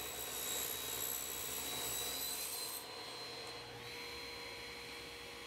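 Table saw running steadily as a walnut board on a sled is pushed through the blade to cut a straight edge. It is a steady machine noise with a faint high tone, and it shifts and drops slightly about three seconds in.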